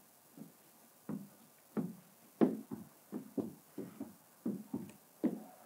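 Squeegee strokes over wet paint protection film on a car hood: an irregular run of short dull knocks, about two a second, the loudest about halfway through.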